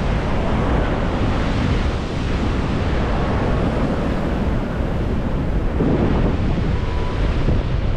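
Wind buffeting the microphone in a steady, heavy rumble, over the rush of sea surf.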